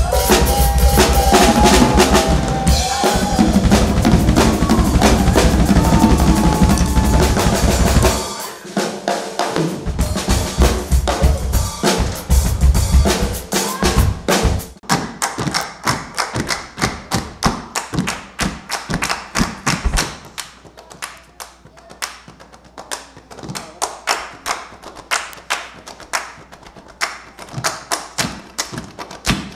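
Drum kit played hard by several players at once, bass drum, snare and cymbals together, for about eight seconds, then sparser hits. From about fourteen seconds a run of sharp, quick clicks of wooden drumsticks struck against each other, quieter after about twenty seconds.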